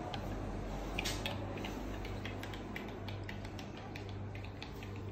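Faint clinks and clicks of dishes and cutlery, scattered irregularly, over a steady low hum.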